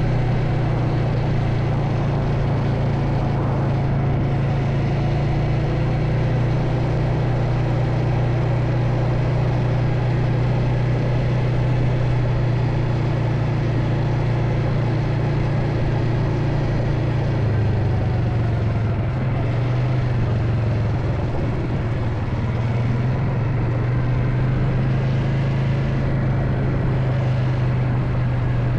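A vehicle engine running steadily with a low drone; its pitch dips a little about two-thirds of the way through, then comes back up.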